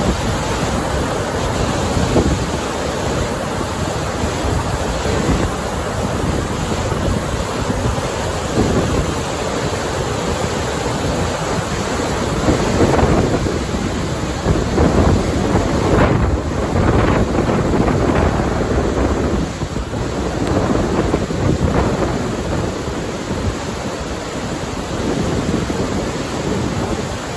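Caban Coch dam overflowing after heavy rain: a loud, steady rush of floodwater cascading down the stone dam face. Wind buffets the microphone, in irregular surges through the middle.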